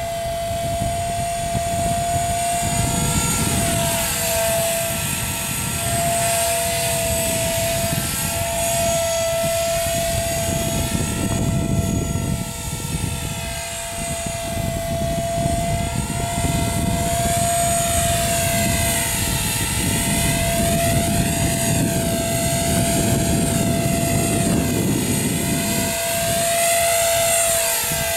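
Blade 300 CFX electric RC helicopter in flight: a steady high whine from its brushless motor and spinning rotors, held at one pitch, with rotor noise that swells and fades and shifts in tone as the helicopter moves around the sky.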